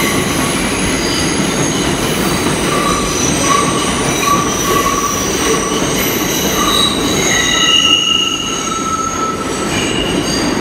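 A New York City subway R142-series train pulls out along curved track, with a steady heavy rumble and high wheel squeal from the curve. Several squealing tones come and go and shift in pitch, and the sound eases slightly near the end as the last car moves away.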